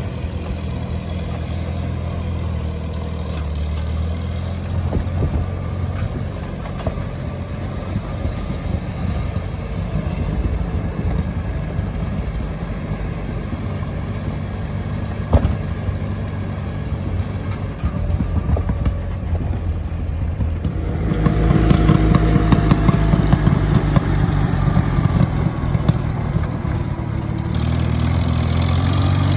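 Old red farm tractor's engine running steadily as it tows a wooden hay wagon. It grows louder and rougher about two-thirds of the way through, and there is a single sharp knock near the middle.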